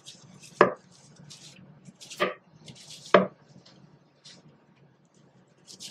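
A paintbrush working paint into the inside corners of a wooden dresser, with faint brushing between three sharp knocks, the loudest about half a second in.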